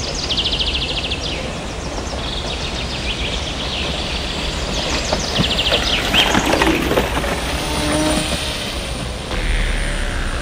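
Woodland birds singing repeated trills over a steady low rumble. A bicycle passes close by about six seconds in.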